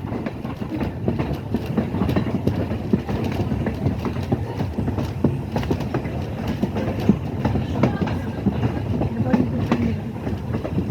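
Railroad passenger coach rolling slowly along the track, heard from inside the car: a steady low rumble with frequent irregular clicks and knocks from the wheels and running gear.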